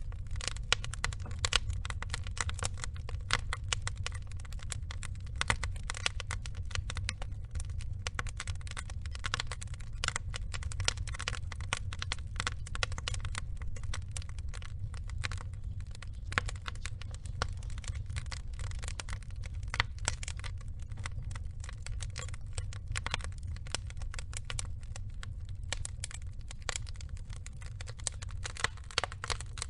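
Log fire burning: a dense run of irregular small crackles and pops over a steady low roar of the flames.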